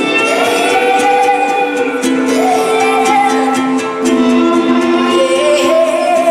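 Live song performance: a woman singing long, gliding phrases over sustained band chords.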